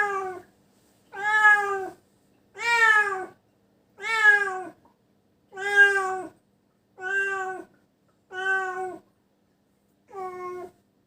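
Domestic cat meowing over and over in pain after a bite from a venomous animal: about eight long meows roughly a second and a half apart, the last one fainter.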